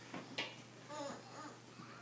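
A baby babbling briefly and softly, with a sharp click about half a second in.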